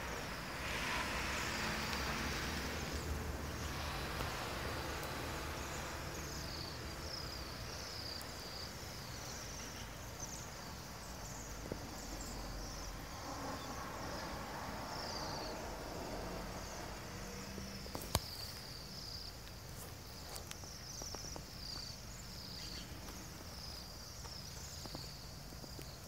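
A flock of waxwings calling with many short, high, thin trills one after another, over a steady background hiss. A single sharp click comes about two-thirds of the way through.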